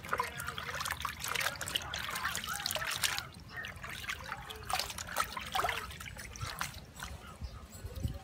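Water sloshing, splashing and trickling in a tub as a tie-dyed cloth is hand-washed: pushed under, squeezed and lifted so water runs off it, in irregular splashes.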